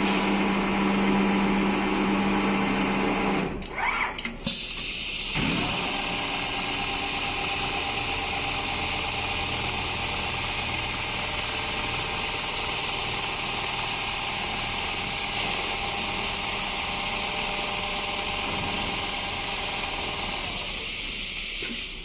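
Automatic large-panel industrial sewing machine running: a steady hum for the first three or so seconds, then, after a short break about four to five seconds in, a steady, even whirring machine noise.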